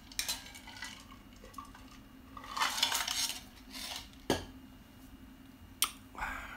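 Household handling noise: short scraping sounds and two sharp knocks, over a faint steady low hum.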